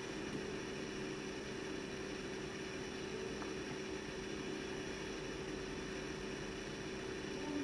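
Steady room tone: a low, even hum with hiss and no distinct sounds.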